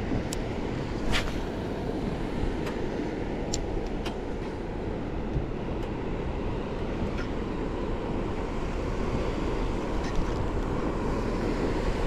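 Steady wind noise on the microphone over water lapping at a small boat's hull, with a few light ticks scattered through it.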